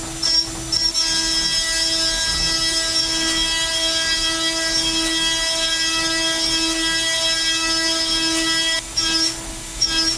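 CNC milling spindle at 19,600 RPM driving a Kennametal HARVI III TJDE end mill through 1018 steel: a steady, high-pitched whine made of a stack of tones, held level through the cut. Near the end the steady whine breaks into a pulsing pattern.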